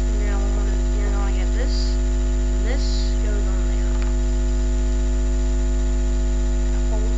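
Steady electrical mains hum: a low, unbroken buzz with a ladder of overtones, picked up in the recording. A faint voice is heard in the first half.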